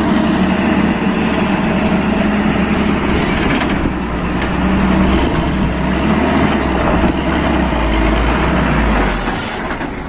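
Hino 500 dump truck's diesel engine running as the truck drives up and pulls in close, a steady deep rumble that eases near the end.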